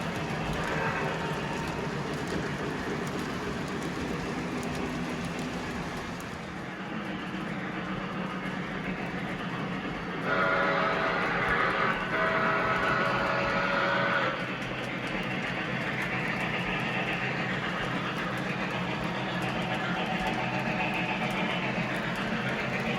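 Model train running on a layout with a steady rumble. About ten seconds in, a louder pitched tone sounds twice back to back, lasting about four seconds in all.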